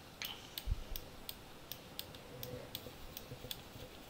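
Steady, even ticking, about three ticks a second, with one soft low thump about a second in.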